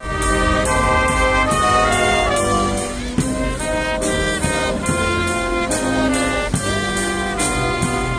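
Live brass band playing a tune with trumpets and trombones over a steady beat.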